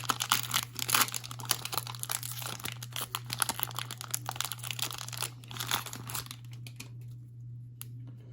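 Foil booster pack wrapper of a trading card pack being torn open and crinkled, a dense crackle for about six seconds that then dies down, with one last click near the end.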